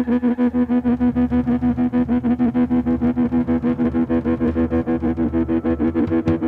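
Rock band playing an instrumental passage: guitar and bass hold a droning chord that pulses rapidly and evenly, about seven times a second. Sharp percussive hits come in near the end.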